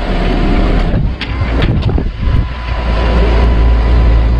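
Doosan DX140W wheeled excavator's diesel engine running steadily under load with a faint steady high tone over it as it holds a container on its slings. A few sharp clinks come between one and two seconds in.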